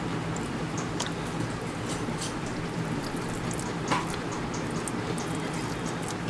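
Eating sounds: fingers pressing and mixing soft, ghee-soaked rice on a steel plate, with small wet squishes and faint clicks, plus a sharper click about four seconds in, over a steady background hiss.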